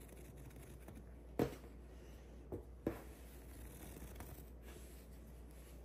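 Faint handling sounds of hands moving crocheted granny squares and yarn on a table as the joined squares are being undone, with a few soft taps about a second and a half in and near three seconds.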